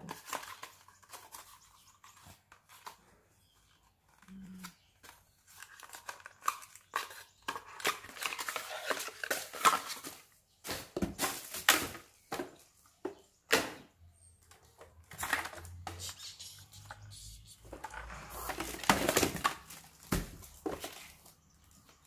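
Clear plastic packaging crinkling and rustling while vacuum parts are unwrapped and handled in a cardboard box, with scattered knocks of cardboard and hard plastic parts being set down. The busiest handling comes about eight to ten seconds in and again near the end.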